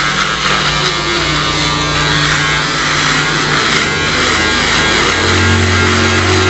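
Electric foil shaver buzzing steadily as it is run over the short-clipped nape and behind the ear, over background music with sustained low notes that change partway through.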